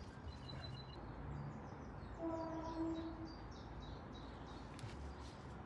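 Faint birdsong: a few high chirps about half a second in, then a lower held call for about a second, about two seconds in. Underneath are faint clicks and rustles of wires being handled.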